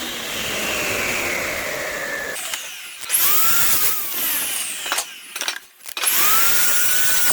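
Handheld electric power tool working wood, its motor whine rising and then sagging under load. It stops for about a second roughly five seconds in, then starts up again.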